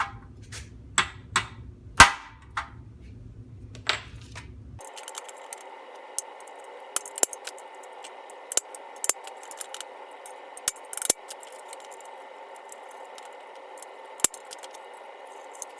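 A series of sharp clicks and knocks, with a steady whirring noise that starts about five seconds in and stops near the end.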